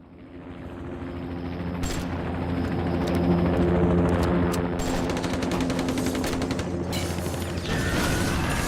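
Sound-effects demo: a low, steady mechanical hum fades in from silence and builds. Over it, rapid clicking and rattling like machinery or distant automatic gunfire starts about five seconds in, and higher steady tones come in near the end.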